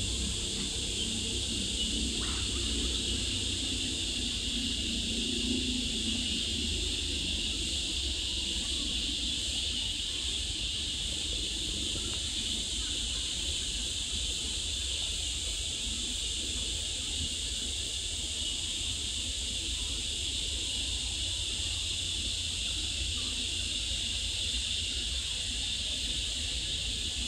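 Steady chorus of insects, a continuous high hiss, over a low rumble.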